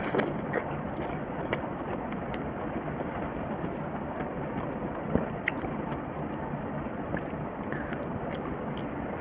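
A person chewing a mouthful of curried boiled egg and rice, with short wet mouth clicks and smacks scattered through. A steady hiss of background noise runs underneath.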